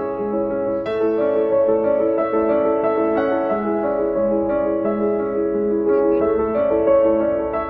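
Background music: a piano melody over held chords.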